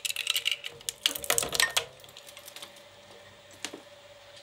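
Twin-shaft shredder cutters chewing up a Hot Wheels toy car: a dense run of sharp cracks and snaps for about two seconds. Then only the shredder motor's steady hum remains, with a couple of stray clicks.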